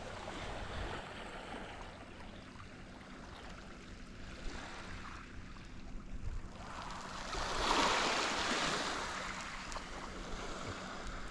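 Small waves washing over a rocky shore, a steady rush of water with one louder wash about two-thirds of the way through.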